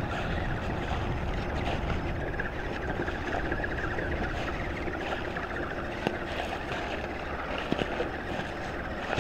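Electric motor and geared drivetrain of an Axial SCX10 RC crawler whining steadily as the truck crawls slowly through grass, with a few short clicks about six and eight seconds in.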